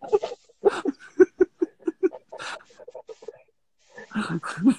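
A man laughing, a quick run of short ha-ha pulses, then a brief pause and more laughter near the end.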